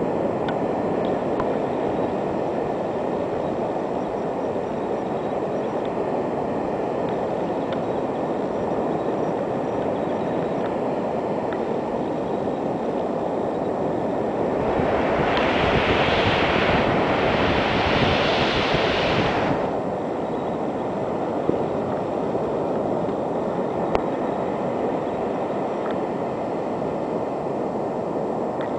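Ocean surf breaking and washing up a sandy beach: a steady low rush, with a louder hissing surge in two pulses a little past halfway as a wave breaks and runs up the sand.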